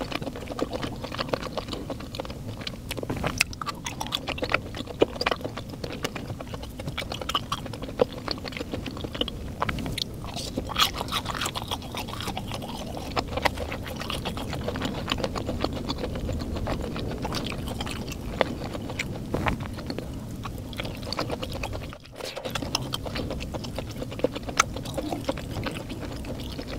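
Close-miked chewing and mouth sounds of a person eating, with many small wet clicks and smacks. The sound briefly drops out about 22 seconds in.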